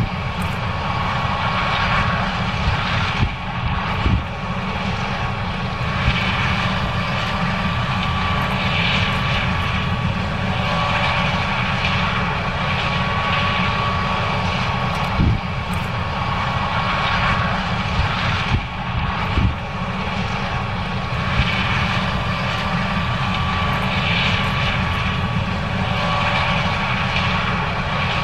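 John Deere S770 combine running steadily while harvesting corn: a continuous low engine rumble with a steady whine over it and a few short knocks.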